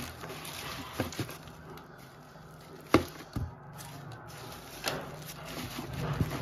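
Bubble-wrapped amplifier circuit boards being packed into a cardboard box: plastic wrap rustling, with a few sharp knocks as boards are set down against the cardboard, the loudest about halfway through.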